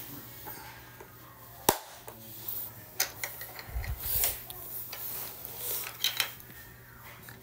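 Loose letter pieces of a plastic alphabet puzzle case clicking and clattering as a toddler's hand rummages through them. The knocks come irregularly, the sharpest about a second and a half in, with a dull low thump near the middle.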